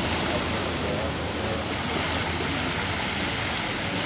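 Steady outdoor rushing noise, even throughout with no distinct events.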